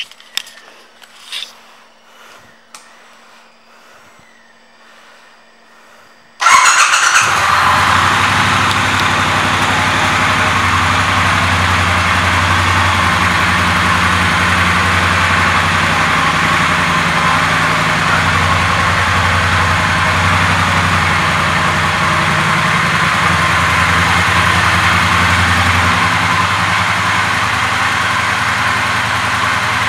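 A 2018 Triumph Bonneville Speedmaster's 1200 cc parallel-twin engine is heard. After a few faint clicks, it starts suddenly about six seconds in and then idles steadily.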